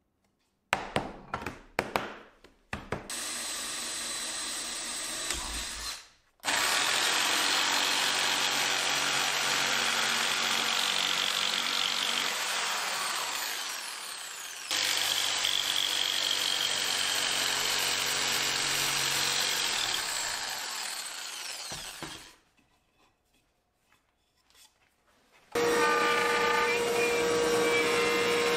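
Woodworking shop power tools in turn. First a few sharp knocks of handling, then a long steady run of machine noise that winds down and fades. Near the end a router in a router table starts and runs at speed with a steady high whine.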